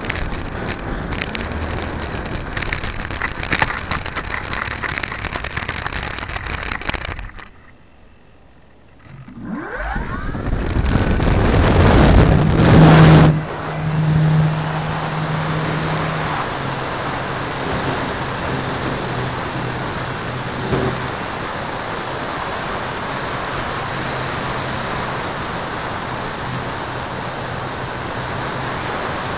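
Onboard sound of a Dynam DC-3 RC model plane: rough rattling and clicking as it rolls over bumpy grass, then a short lull with the motors throttled back. The twin electric motors then spool up for the takeoff, rising to the loudest point of the clip, and settle into a steady drone with a thin high whine and rushing air in flight.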